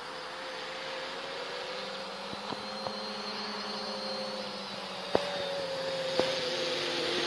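Quadcopter's electric motors and propellers humming steadily as it flies back toward the camera under GPS return-to-home, slowly growing louder as it nears. A few short sharp clicks are heard over it.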